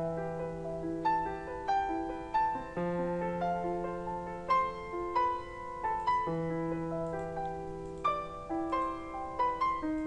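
Background piano music: a gentle melody of single notes struck one after another over long held low notes.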